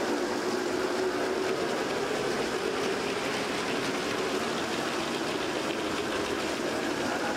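G-scale model train running along its track, a steady hum of its motor and rolling wheels.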